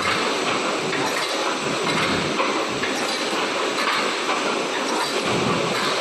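Steady, dense mechanical clatter of a wire mesh welding machine running, with irregular light knocks and no pauses.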